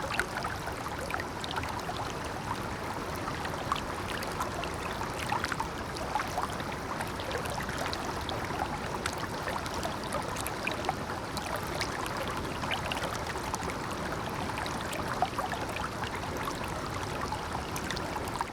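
Shallow water flowing over stones near a waterfall: a steady rush with many small splashes and gurgles.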